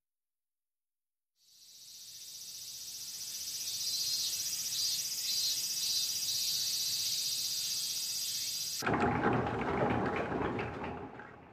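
A chorus of cicadas droning in a steady high hiss that fades in after a second and a half of silence. About nine seconds in, a louder and fuller cicada buzz takes over, then fades.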